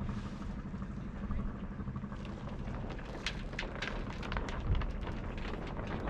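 Light wind rumble with scattered small ticks and crackles from the hoisted sails and rigging stirring in the breeze.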